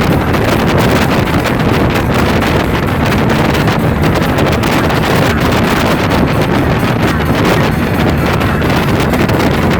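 Wind buffeting the microphone aboard a speedboat running at speed, with a steady rush of engine and water noise underneath.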